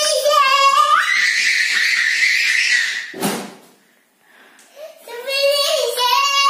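Young child's high-pitched voice, rising into a long shrill squeal of delight that lasts about two seconds. A brief thud follows a little after three seconds in, then more high-pitched babbling near the end.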